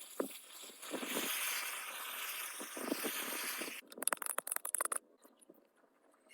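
Scraping or abrasive work on a workpiece: a steady hiss for a few seconds, then a quick run of short scratchy strokes that stop about five seconds in.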